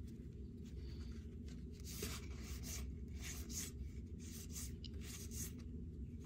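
A stack of cardboard baseball cards being flipped through one at a time, each card sliding against the next: a series of soft, short papery swishes, roughly two a second, over a low steady hum.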